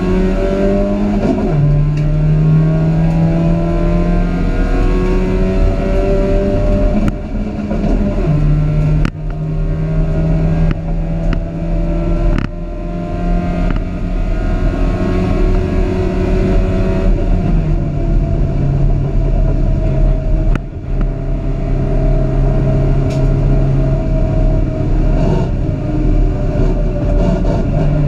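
Dacia Logan race car's engine heard from inside the cabin, running hard and climbing in pitch as it revs. The sound drops briefly a few times, about seven, nine, twelve and twenty seconds in.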